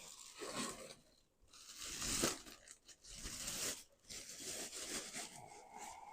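Packaging being torn and unwrapped by hand: several rustling, tearing bursts, the loudest about two seconds in.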